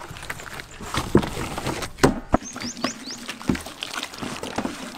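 Hands rubbing wet masala paste into a raw mutton leg on a metal tray, with an irregular run of squelches and smacks. A few short, high chirps come about halfway through.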